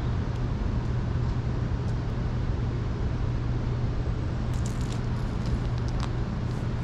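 Steady outdoor background noise: an even hiss with a constant low hum underneath and a few faint clicks about five seconds in.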